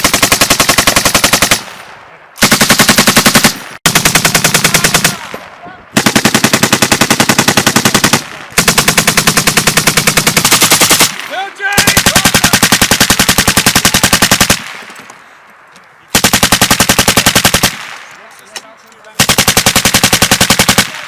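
Belt-fed machine gun firing eight long bursts of rapid automatic fire, each one to three seconds long, with short pauses between them.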